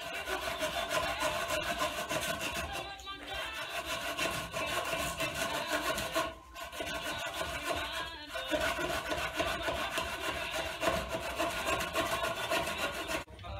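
Knife blade scraping quickly back and forth along a charred wooden log, shaving off wood in rapid repeated strokes, with brief pauses about 3, 6 and 8 seconds in.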